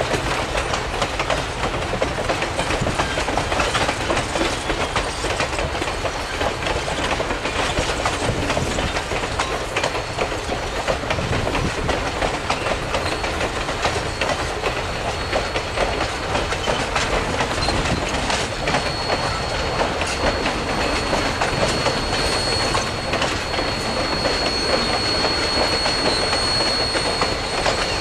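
Passenger train cars rolling past at speed, wheels clattering over the rail joints, with a steady high-pitched squeal from the wheels on the curve that grows stronger in the second half.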